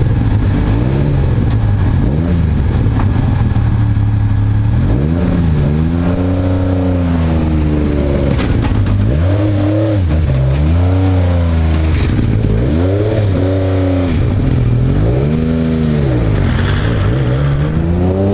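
MG Metro 6R4's 3.0-litre V6 rally engine idling and being blipped again and again, the revs rising and falling with each blip. The first blips are small, then from about five seconds in come four bigger ones a couple of seconds apart.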